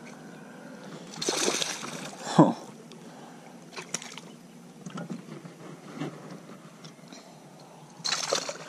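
A small hooked bass splashing at the water's surface as it is reeled in beside the boat. The splashing comes in bursts: the sharpest about two and a half seconds in, and another spell near the end.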